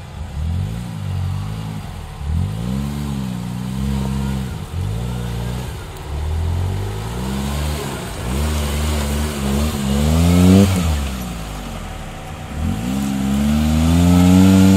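Suzuki Jimny JA11's small three-cylinder turbo engine revving in repeated bursts, its pitch rising and dropping again every second or two as the throttle is blipped on rough off-road ground, climbing highest about ten seconds in and again near the end.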